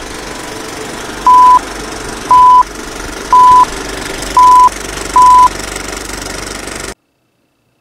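Old film-leader countdown sound effect: a film projector running with a steady clatter, with five short high beeps about a second apart. It cuts off suddenly near the end.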